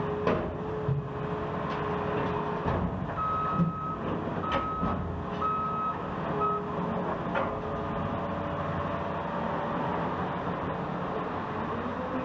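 Heavy construction vehicle running with its backup alarm beeping four times a few seconds in, over a steady engine rumble, with scattered metallic clanks.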